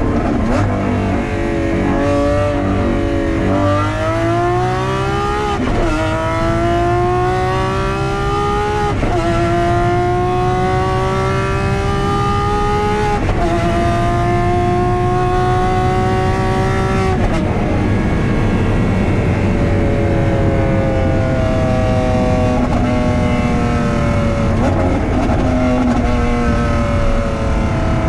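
Lamborghini Aventador SVJ's naturally aspirated V12 through a Novitec exhaust under hard acceleration, its pitch climbing in each gear and dropping sharply at each upshift, several shifts in the first seventeen seconds. It then pulls on at high speed in the top gears with a steadier, flatter note.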